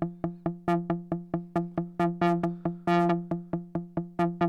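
Buchla Music Easel synthesizer repeating one pitched note about five times a second, triggered by its pulsar. Random voltage sets each note's envelope decay, so some notes are short clicks and a few ring longer and brighter.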